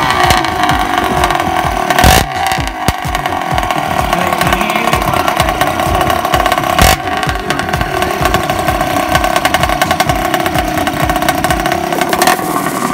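Yamaha RXT 135 drag bike's two-stroke single-cylinder engine running steadily at a fast idle. Two sharp cracks stand out, about two seconds in and again about seven seconds in.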